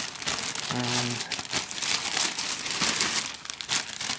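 Thin plastic bag crinkling and rustling as it is handled, a continuous, uneven crackle.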